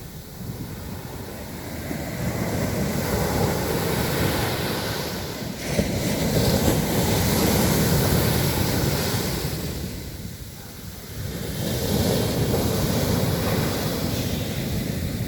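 Sea waves breaking on a beach: a continuous surf wash that swells and fades, with a sudden surge about six seconds in, a lull around ten seconds, then another swell.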